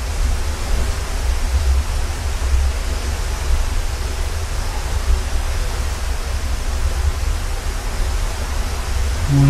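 Wind rushing over a ferry's open deck and buffeting the microphone: a steady hiss over a heavy low rumble. Near the end the ship's foghorn starts, a loud steady low tone, sounded because of the sea fog.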